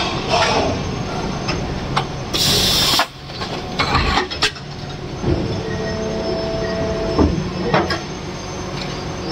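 Injection moulding machine running a bottle-cap production cycle with steady mechanical noise and scattered clicks and knocks. A short, loud hiss comes about two and a half seconds in, as the caps are stripped off the mould cores.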